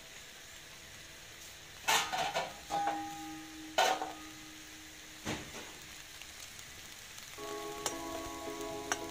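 Maize cobs in a hot frying pan, sizzling in several short bursts, with a few clicks of a spoon in the pan near the end. Soft background music plays throughout and grows fuller near the end.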